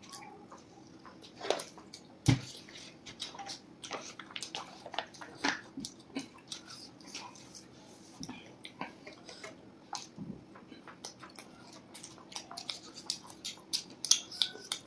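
Close eating sounds of two people chewing pizza: many small clicks, smacks and crust crackles, with one louder thump about two seconds in.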